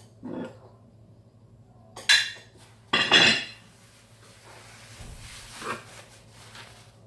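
Kitchen dishes clattering on a counter: a short knock at the start, then two sharp knocks about two and three seconds in, the second louder and trailing into a brief scrape.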